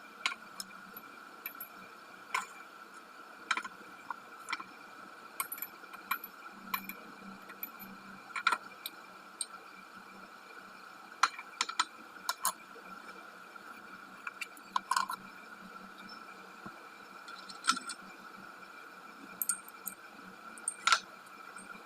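Light clicks and clinks of small hard objects being handled, a dozen or so at irregular intervals, over a faint steady high-pitched hum.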